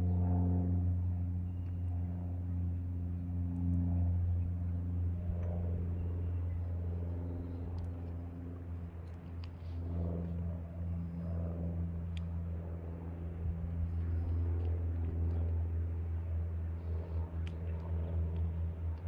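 A steady low engine hum holding one pitch throughout, with a few faint high ticks over it.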